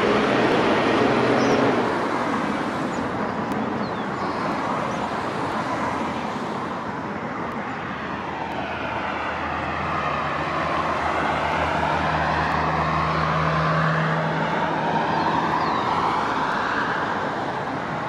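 A UT-440 electric multiple unit passes and fades away within the first two seconds, leaving a steady outdoor vehicle rumble. From about ten seconds in, a low steady hum with tones that rise and fall is heard, like another vehicle passing.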